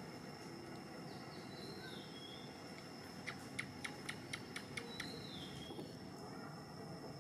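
Outdoor bird ambience: two short falling whistled calls and, near the middle, a quick run of about eight sharp chips, about five a second, over a steady high-pitched tone.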